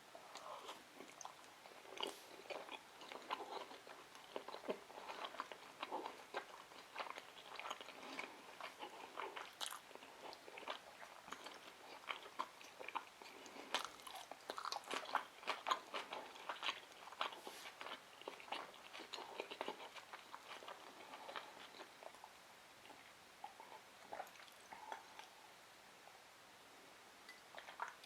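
Close-miked chewing of a spicy scallop sushi roll: many short, irregular wet smacks and clicks of the mouth, thinning out near the end.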